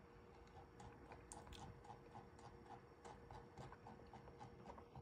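Faint, rapid ticking of a computer mouse's scroll wheel being rolled, about four ticks a second, over near silence.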